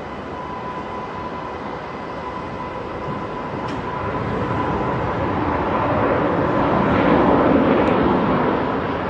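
Jet engines of a landing Boeing 737 during its runway roll-out: a steady whine over a rushing noise that swells louder over the last few seconds.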